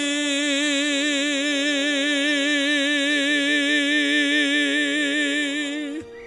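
A man's singing voice holding one long final note ("me") with a wide, even vibrato over soft accompaniment, cutting off about six seconds in.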